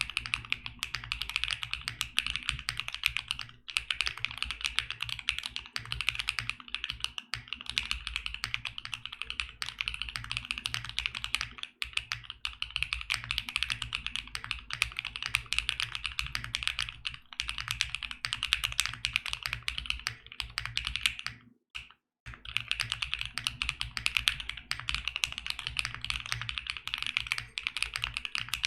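Fast continuous typing on a mechanical keyboard with BSUN Dream linear switches (PC top housing, nylon bottom, POM stem) in a CIEL 65 with a polycarbonate plate, gummy O-ring mount and no case foam. The keystrokes are deeper-pitched and marbly, and the typing pauses briefly about three-quarters of the way through.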